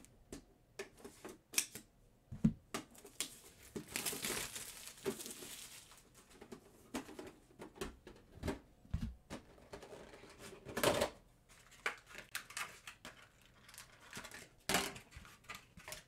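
Hands opening a Pokémon card tin and its clear plastic wrap: plastic crinkling and tearing, with scattered sharp clicks and taps from handling the tin. A longer rustle comes about four seconds in and a louder crackle near eleven seconds.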